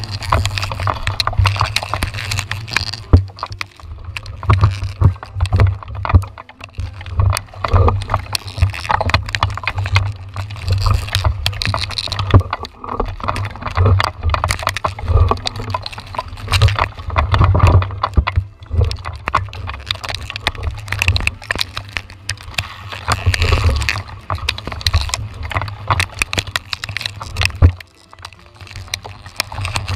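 Rumble of wind and handling on the microphone of a pole-mounted action camera, broken by frequent knocks and taps as branches and rain hit its housing.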